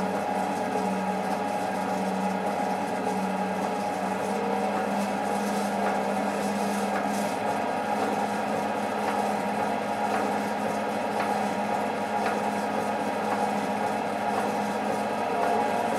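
Steady mechanical hum of the pipe-flow rig's running machinery. A low tone in the hum fades out about halfway through.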